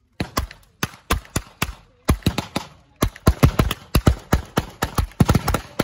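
Blank gunfire: irregular single shots, then faster, denser firing from about halfway through, several shots a second.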